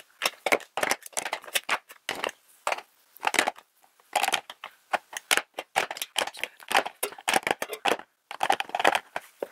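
Makeup brushes being dropped one after another into a clear acrylic brush holder: a run of irregular light clicks and clatters as the brush handles knock against the acrylic and against each other.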